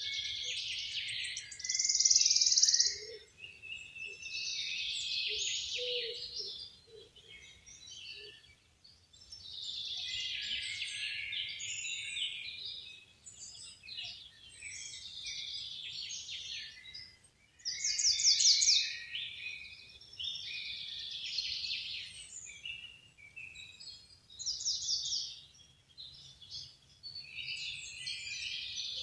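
Songbirds singing in short, overlapping phrases every second or two, some of them fast high trills, over a faint steady outdoor hum.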